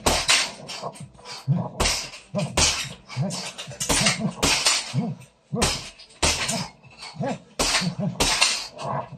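Boxing gloves punching a hanging heavy bag in quick combinations, about two hits a second at an uneven pace. Short grunting breaths come with many of the punches.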